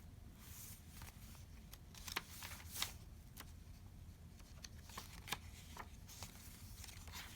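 Paper pages and inserts of a handmade junk journal being turned and handled: faint rustling with a few soft, sharp paper flicks scattered through.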